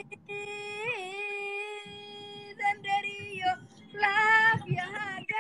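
A woman singing in a high voice: a long held note that bends up briefly about a second in, then after a short pause a few shorter notes and another sung phrase near the end.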